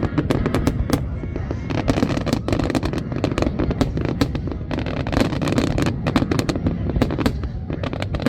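Aerial fireworks bursting in rapid succession: a dense run of sharp bangs and crackles over a continuous low rumble.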